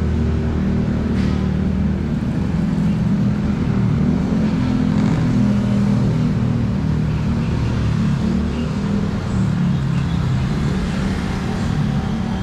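Road traffic close by: vehicle engines running with a steady low hum that shifts slowly in pitch as vehicles idle and move.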